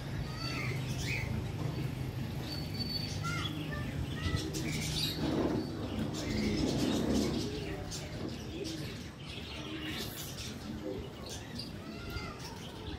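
Birds chirping in short, scattered calls, with a louder, lower stretch of sound about halfway through, over a steady low hum.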